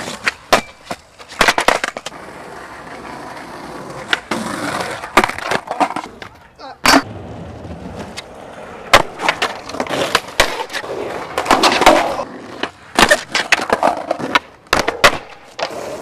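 Skateboards rolling on pavement, broken by many sharp clacks of the boards hitting the ground and ledges.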